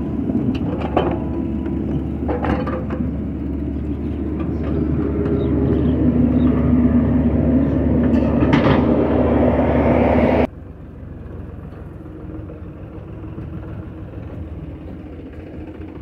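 SANY crawler excavator's diesel engine running hard while loading soil into a dump truck, getting louder through the middle, with a few sharp knocks of the bucket and soil against the truck body. About two-thirds through it drops abruptly to a quieter steady engine hum.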